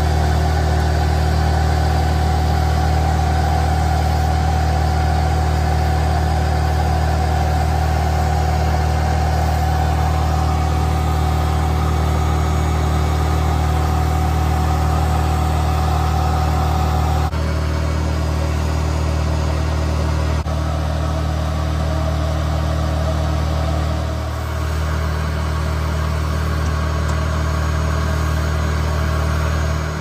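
Bee vacuum running with a steady motor hum as its hose sucks honeybees off the comb. The tone of the hum changes slightly about 17 seconds in.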